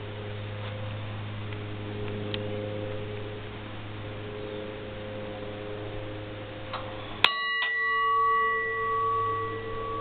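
An 8-inch brass mechanical engine-room signal bell struck once by its pull cord about seven seconds in, ringing on with several clear tones that fade slowly. A single bell is the engineer's signal for go ahead or stop. Before the strike there is only a steady low hum.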